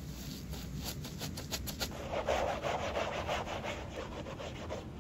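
Gloved hand working a cotton pad soaked in de-yellowing solution against a sneaker. First comes a run of quick, short rubbing strokes, then a longer, denser scrub about two seconds in.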